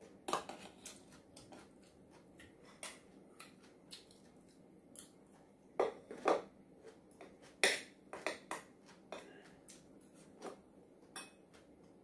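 Metal spoon clinking and scraping against ceramic bowls while eating: scattered light clicks, with a few louder clinks around the middle.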